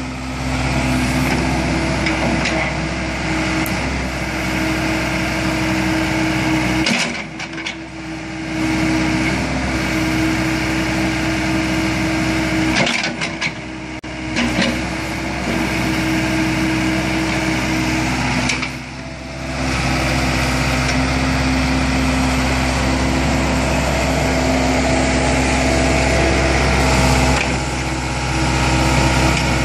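Daewoo SL55 mini excavator's diesel engine running steadily as the boom and bucket are worked, its sound dipping briefly three times, about six seconds apart.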